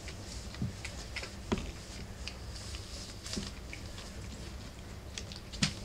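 Four-week-old rough collie puppies scuffling about on fleece bedding and newspaper: scattered light taps and rustles, the sharpest near the end, over a steady low hum.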